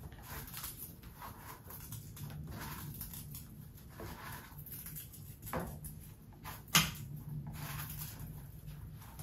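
Kitchen knife cutting raw boneless chicken into small pieces on a plastic cutting board: soft repeated strokes of the blade through the meat and onto the board, with one sharp clack about seven seconds in.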